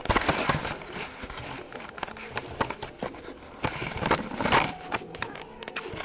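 Parrot scrabbling about in a cardboard box and bedding: a busy run of scraping and rustling with many sharp clicks, loudest just after the start and again around four seconds in.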